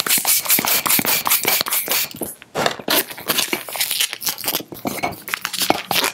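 Hand pump inflating a red 160 latex twisting balloon in quick rushing strokes, then, after a short pause, the latex squeaking and rubbing as the balloon is knotted and handled.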